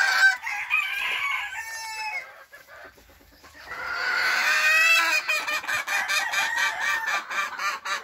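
Gamefowl chickens calling: clucking in the first two seconds, then after a brief pause a rooster crowing, a long drawn-out call starting about four seconds in.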